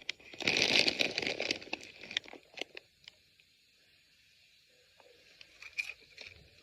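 Plastic snack bag of popcorn crinkling and rustling as it is handled for about two and a half seconds, then a few faint clicks near the end.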